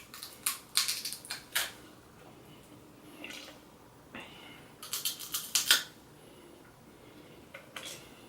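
Close-miked eating of a seafood boil: three short clusters of sharp crackling clicks, with quieter stretches between them.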